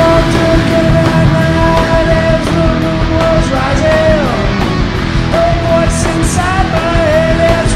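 Rock band playing an instrumental break: an electric lead guitar holds long notes that bend in pitch over the drums, cymbals and bass.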